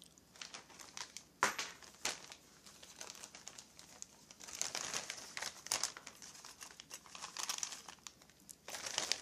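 Small clear plastic bags of screws crinkling and rustling as they are handled and gathered up, in irregular bursts with a few sharp crackles.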